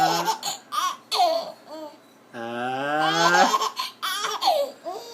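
A man sneezing, each sneeze a drawn-out rising 'aah' that breaks off into a sharp 'choo', and a baby laughing in short bursts after each one.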